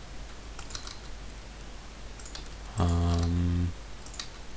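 A few scattered computer keyboard key presses and clicks. Past the middle, a person's voice holds a steady hum for about a second.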